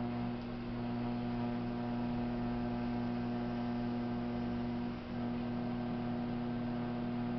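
Electric potter's wheel running with a steady low motor hum, a stack of even tones that holds level throughout.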